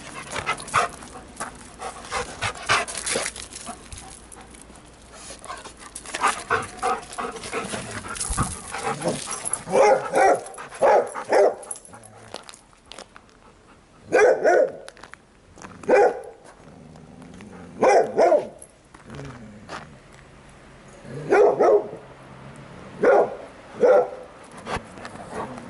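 Dog barking in a boarding kennel: quick runs of short yips and barks in the first half, then single barks about every two seconds.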